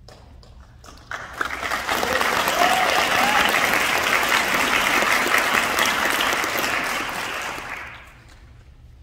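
Concert audience applauding: the clapping swells about a second in, holds, and dies away near the end.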